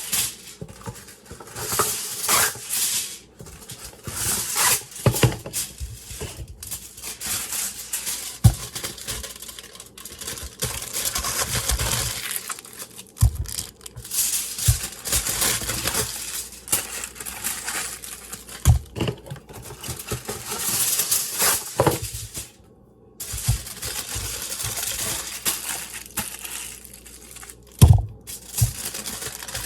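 Aluminium foil crinkling and rustling as potatoes are wrapped in it, in irregular handfuls, with a few sharp knocks.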